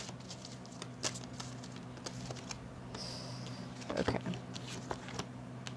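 A deck of oracle cards being shuffled by hand: soft, scattered taps and flicks of card stock, with a slightly fuller rustle about four seconds in. A steady low hum runs underneath.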